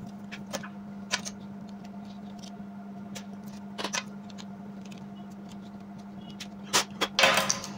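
Scattered light clicks and taps of hands working a USB port board loose from a bare laptop casing, with a sharper click about four seconds in and a cluster of clicks near the end. A steady low hum runs underneath.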